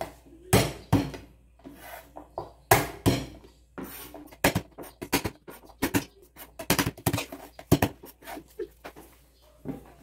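Cleaver on a wooden chopping board, smashing and cutting garlic cloves with their skins on: a series of sharp knocks on the wood, a few heavy whacks in the first three seconds and then a quicker run of knocks.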